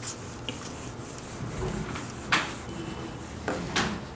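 Whiteboard being wiped clean: marker writing rubbed off in scrubbing strokes across the board, with two sharper swipes a little past two seconds in and again near the end.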